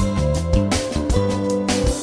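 Background music with a steady beat and sustained instrumental notes.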